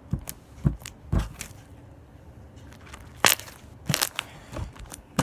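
Slime being poked and squeezed by hand: a few soft low thuds, then several sharp crackling clicks and pops.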